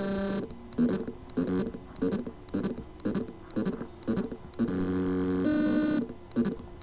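Spindle motor of a 2.5-inch Seagate BarraCuda hard drive trying to spin: a short held whirring tone, then a run of short pitched buzzing chirps about twice a second, a longer tone a little past the middle, and more chirps near the end. The motor spins but cannot reach full speed because the motor contacts on the circuit board are loose.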